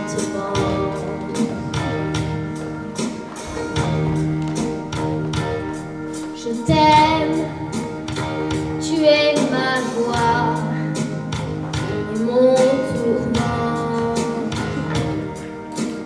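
Children singing a song over instrumental accompaniment with a steady beat; their voices come in more strongly about halfway through.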